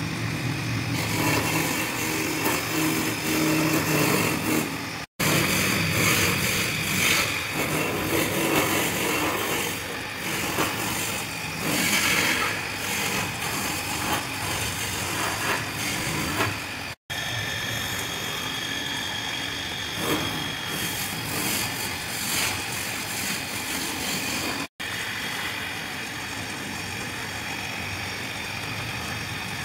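Wood lathe running steadily, spinning a spindle of turned wooden rings while wax crayon is pressed against them to colour them. The sound cuts out briefly three times.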